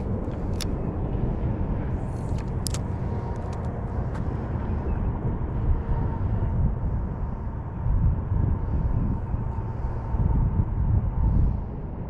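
Wind rumbling and buffeting on the microphone, surging louder about two-thirds of the way through, with a few sharp clicks in the first three seconds.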